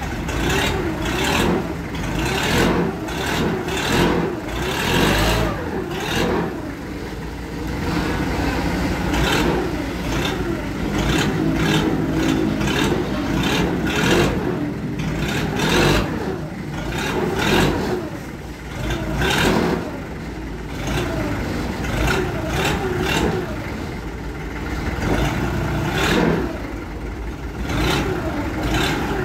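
Large forklift's engine revving up and down over and over as the machine is worked and driven during a test.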